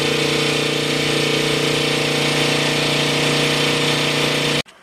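Connecting-rod honing machine running steadily, its mandrel spinning as a resized rod's big-end bore is honed round to size. The sound cuts off suddenly near the end.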